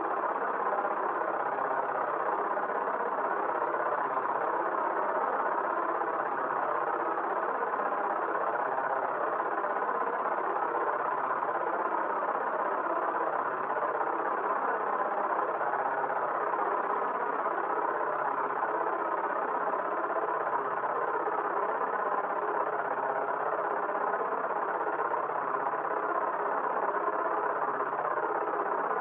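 A steady, dense drone of many held tones, strongest in the middle range, with a slow wavering in its lower part and no breaks or changes.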